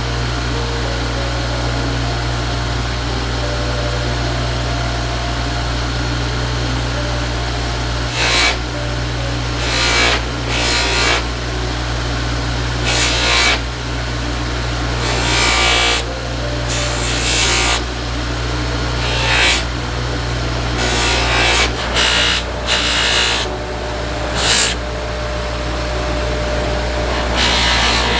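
Bench buffer motor running steadily. From about eight seconds on come about a dozen short bursts of hiss, each under a second, as a knife is pressed to the buffing wheel.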